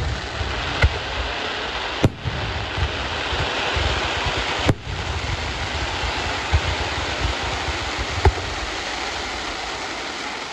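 Professional fireworks display: a continuous dense rush of noise from many shells going off at once, cut through by several sharp bangs.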